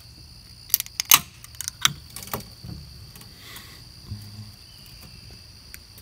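Steady, shrill drone of insects, with a cluster of sharp clicks and knocks about a second in and again around two seconds, from the phone being handled.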